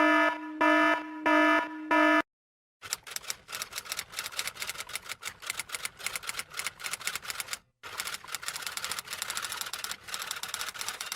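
Four short pitched beeps, like a small alarm, followed by fast typewriter key clacking: many sharp irregular clicks a second, with one brief pause near the end.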